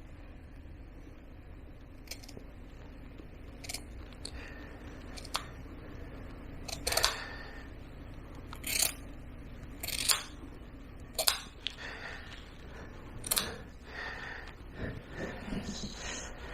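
Grooming scissors snipping the hair in a dog's ear: sharp single clicks, about eight or nine of them, at uneven intervals of a second or two.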